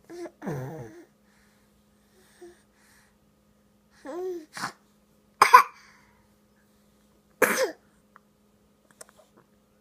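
A seven-month-old baby making short noises with its voice: four separate cough-like grunts and squeals with pauses between them, the loudest about halfway through.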